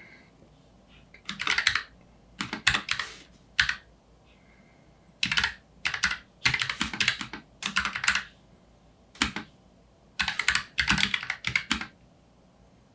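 Keychron K7 Pro low-profile mechanical keyboard with Gateron brown tactile switches being typed on: runs of rapid key clicks in word-like bursts with short pauses between them.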